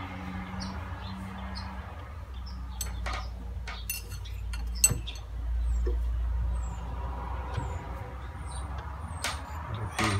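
Small engineer's lathe running slowly with a steady low rumble while the cutting tool cuts a brass disc into a cam, copying a pattern. Scattered metallic clicks and clinks, the sharpest about five seconds in.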